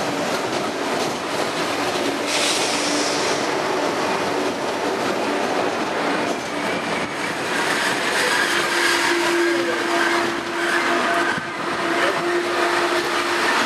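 TGV high-speed trainset running past close along the platform: a steady rush of wheels on rail with clickety-clack over the rail joints. A brief hiss comes about two seconds in, and a steady whine joins in over the second half.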